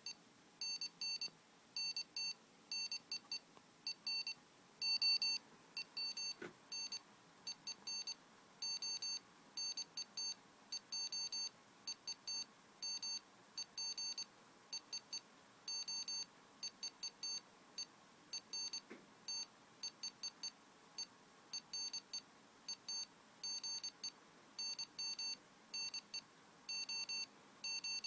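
Morse code played by an Arduino as electronic beeps: one high tone keyed on and off in short dots and longer dashes, with longer gaps between groups.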